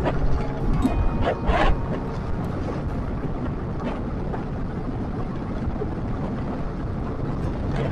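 Steady low rumble and wind rush of a motorcycle ride heard from a bike-mounted camera, with a few short gusts of wind noise about a second and a half in.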